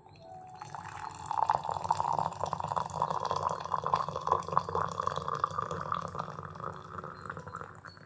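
Liquid pouring steadily into a cup, starting about half a second in, its pitch rising slightly as the cup fills.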